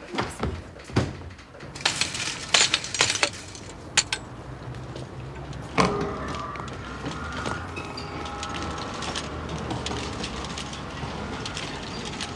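Sheets of paper printout rustling and flapping in a run of sharp crackles. About six seconds in, a sudden knock gives way to steady shop background noise with faint held tones.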